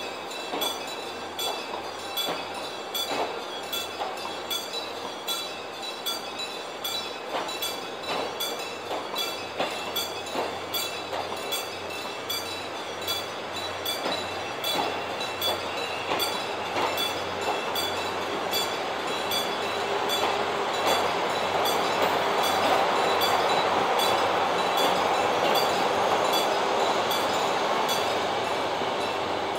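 Korail Mugunghwa passenger train's coaches rolling past with regular clickety-clack of wheels over rail joints. The train sound grows louder in the second half, to a steady rushing rumble as the end car goes by.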